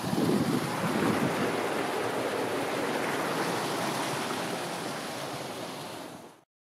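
Wind rushing over the microphone as a steady hiss, with low buffeting at the start; it eases slightly and cuts off abruptly about six seconds in.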